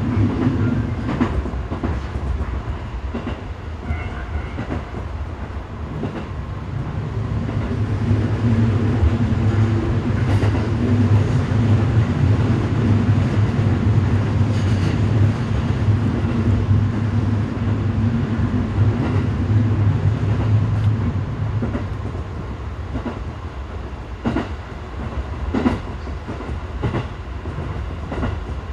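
211-series electric train running on the line, heard from inside its driver's cab: a steady low rumble and hum of the running gear, with sharp clicks of the wheels passing rail joints. The rumble swells for a while through the middle and eases off toward the end, where a run of joint clicks comes close together.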